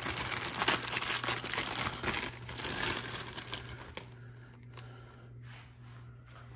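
Clear plastic bag crinkling as it is opened and handled. The crinkling is dense for the first two seconds or so, then thins out to a few faint crackles after about four seconds.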